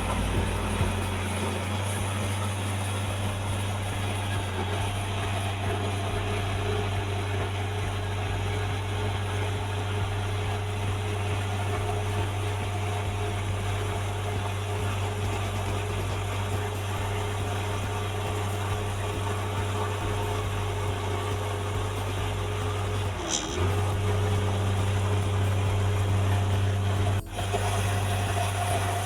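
A vehicle's engine running steadily with a low hum, briefly dipping about three-quarters of the way through and then running a little louder, with a short cut-out near the end.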